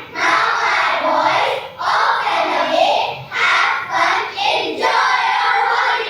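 A group of children chanting in unison, in about four phrases of a second and a half each.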